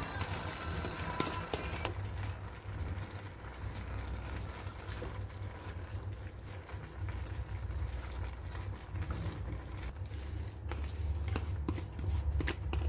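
Wooden spatula stirring shredded cabbage and ground meat in an aluminium wok, with scattered clicks and scrapes of wood on metal over a steady low rumble. The clicks come more often near the end.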